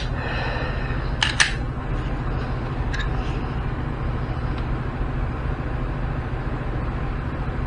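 A few sharp metallic clicks from handling a 9mm pistol during trigger-pull testing: one at the start, two in quick succession about a second and a half in, and a faint one a little later. A steady low hum runs underneath.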